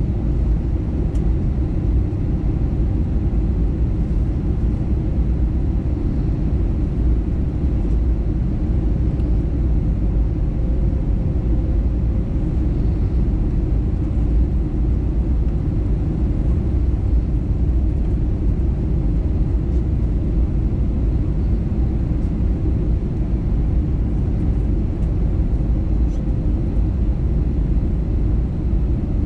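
Steady low rumble of engine and airflow noise heard inside the cabin of an Airbus A321neo airliner on final approach to landing.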